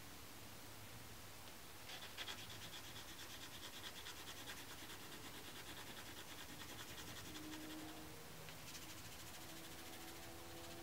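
Graphite pencil scratching on paper in quick, rapid shading strokes, faint. It starts about two seconds in, pauses briefly near eight seconds, and resumes toward the end.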